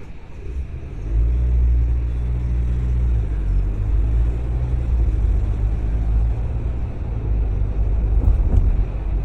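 Car driving, a low engine and road rumble that grows louder about a second in and then holds steady.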